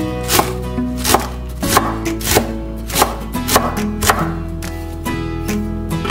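Kitchen knife chopping shredded cabbage on a wooden cutting board, a steady run of cuts at roughly three every two seconds, over soft background music.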